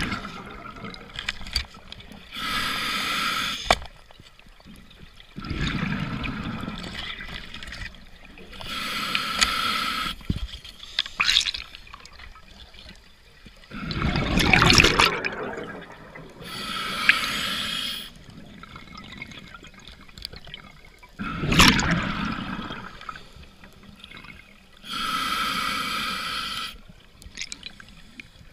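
Scuba diver breathing through a demand regulator in a slow, regular cycle: a hissing inhale through the regulator alternating with a louder gush of exhaled bubbles, about one breath every seven seconds.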